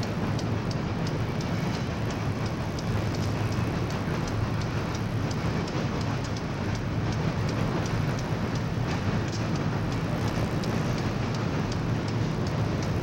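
Freight cars of a CSX train rolling steadily across a steel girder railway bridge, a continuous rumbling noise, while a second train's diesel locomotive stands stopped on the bridge.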